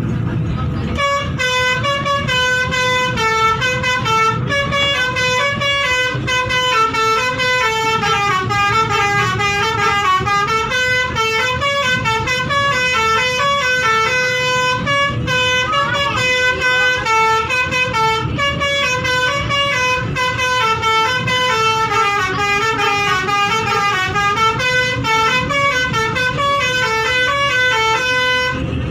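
Indonesian bus 'basuri' musical horn, a multi-tone air horn, playing a continuous quick melody of short stepped notes over a low steady rumble.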